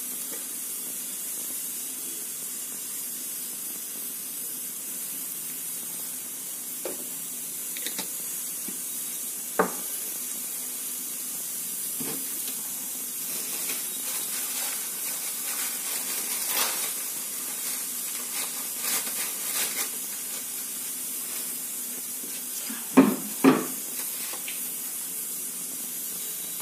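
Mustard oil heating in a hot kadai: a steady hiss with scattered crackles and spits, busiest about halfway through. A few sharp clicks, two close together near the end.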